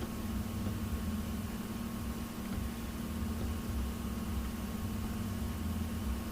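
Steady low hum with an even hiss and a faint high tone, unchanging throughout: the background noise of the recording.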